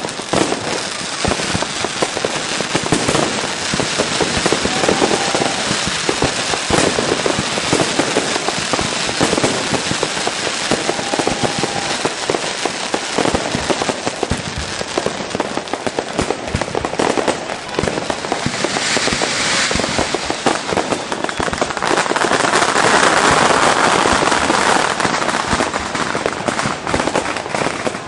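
Fireworks going off in a dense, continuous run of crackles and bangs. About 22 seconds in they swell into a louder, hissing crackle for a few seconds.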